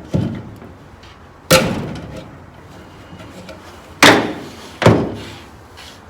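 Four sharp knocks from handling the seat webbing and its metal clips against the aluminum canoe seat frame, the loudest about four seconds in, with faint handling noise between.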